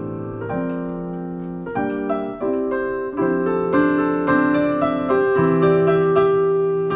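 Piano playing held chords that change about every half second to second.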